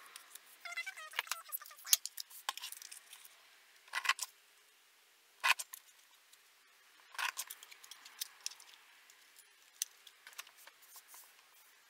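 Paper rustling and the sharp snaps of a fringe border punch being pressed down on a paper strip, several snaps a second or two apart, with lighter handling clicks between them.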